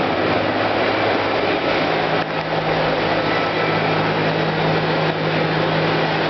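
Steady mechanical running noise with a low hum underneath, unchanging throughout.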